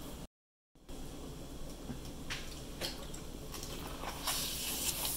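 A bite into a piece of crispy fried chicken coated in sauce, with a wet crunch about four seconds in after a few faint small clicks. The sound cuts out completely for a moment near the start.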